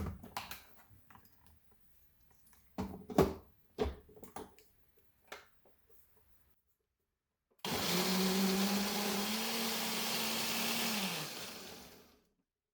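A few knocks and clicks, one sharp and loud about three seconds in, then an electric blender motor starts and runs steadily for about four seconds, chopping loquat leaves in water, before its pitch drops and it winds down.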